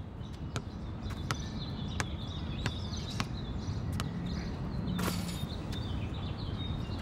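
A basketball dribbled on an outdoor asphalt court, bouncing in sharp separate knocks about every half second, with birds chirping in the background. A louder, longer noise comes about five seconds in.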